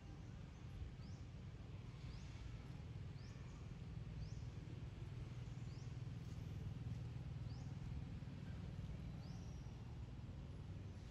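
Outdoor ambience: a bird calling with short, high, rising chirps about once a second over a low steady rumble.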